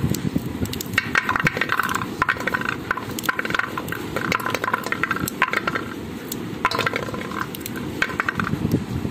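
Small mak mao berries being pulled off their stalks and dropping into a metal bowl: scattered light clicks and rattles.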